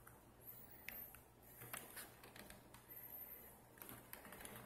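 Near silence with a low hum and a few faint clicks and rustles of a carded toy car's plastic blister pack being turned in the hand.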